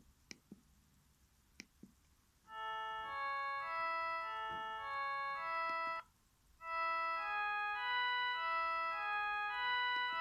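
Sony Ericsson S312 mobile phone playing a polyphonic ringtone melody of clean, organ-like electronic tones through its small loudspeaker, after a few short clicks. The tune breaks off about six seconds in and starts again after a brief gap.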